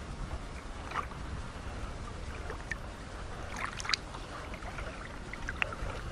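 Shallow river water lapping and splashing around a hand holding a fish in the current. There are a few small sharp splashes, about a second in, twice near four seconds and once more before the end, over a low rumble of wind on the microphone.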